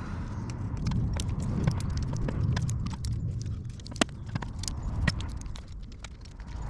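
Scattered light clicks and knocks of engine parts and tools being handled, over a steady low rumble.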